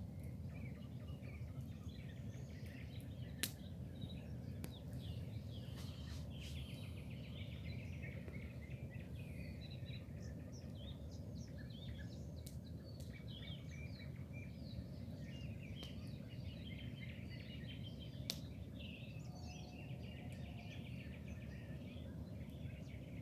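Several birds chirping and singing over a steady low rushing background, with two sharp clicks, one a few seconds in and one past halfway.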